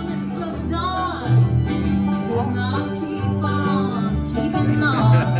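Live bluegrass band playing: banjo, acoustic guitars and upright bass together, the bass moving through steady low notes under the picked strings.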